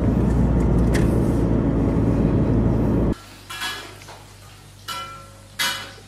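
Street traffic noise, a steady low rumble of passing cars, which cuts off suddenly about three seconds in. A quiet room follows, with three short sharp sounds, the last the loudest.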